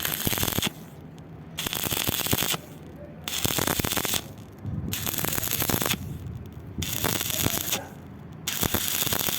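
Arc welding with a stick electrode, the arc crackling in short runs of about a second that stop and restart over and over, the arc broken and re-struck to build weld across a wide gap in iron.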